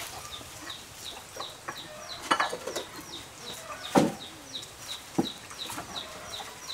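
Chickens clucking, with a steady run of short, high, falling peeps about three a second. A few sharp clicks and knocks of a wooden spoon on a ceramic bowl and wok, the loudest about four seconds in.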